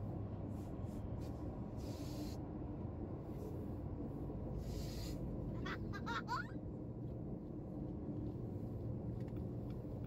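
Steady low road and engine rumble inside a moving car's cabin. Two short hissy swells pass, and about six seconds in there is a brief burst of high, wavering chirps.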